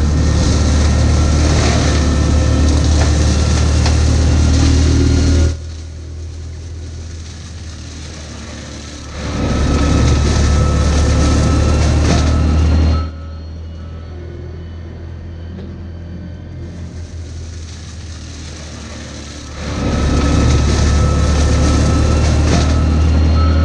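Baumalight brush mulcher on a compact track loader, its hydraulic toothed drum spinning and chewing through brush and wood, over a steady low engine hum. It is loud in three stretches that drop abruptly to a quieter running sound twice in between.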